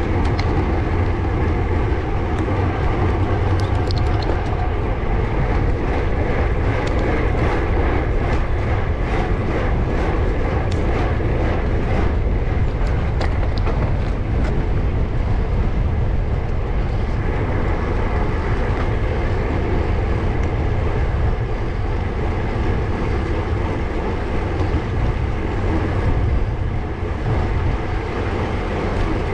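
Steady rushing and rumbling of a road bike (Canyon Aeroad) ridden uphill on tarmac: wind across the action camera's microphone and tyre noise from the road, with faint clicks now and then in the first half.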